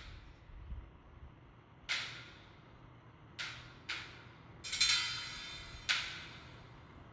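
Small waves slapping and splashing against a sailboat's hull in choppy water: about six sharp splashes with a hiss that fades quickly, the longest lasting about a second just before five seconds in.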